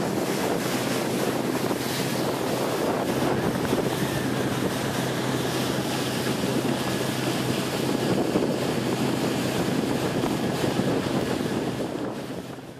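Small motorboat under way: a steady engine hum under rushing water and wind buffeting the microphone. The sound fades out near the end.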